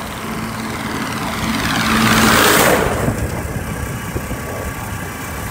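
Oncoming tractors passing close by a moving motorcycle. Their engine noise swells to its loudest about two and a half seconds in and then falls away, over a steady rush of wind and the motorcycle's own engine.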